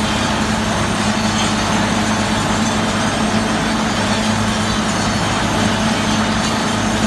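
A heavy machine engine running steadily at constant speed, with an even low hum and no revving or changes.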